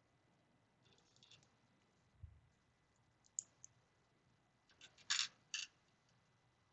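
Small plastic LEGO pieces clicking as they are handled and pressed together, a few short clicks with the loudest pair about five seconds in, and a soft low thump a little after two seconds.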